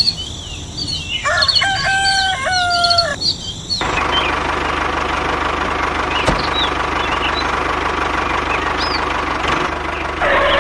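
A rooster crows over chirping birds. About four seconds in, a tractor engine starts running steadily under the birdsong, and a louder sound joins near the end.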